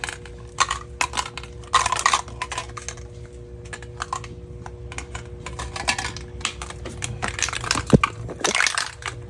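Metal spray paint can being pried and torn open: irregular sharp metallic clicks, snaps and crunching.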